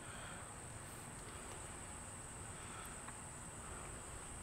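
Quiet lakeside ambience with a faint, steady high-pitched insect drone.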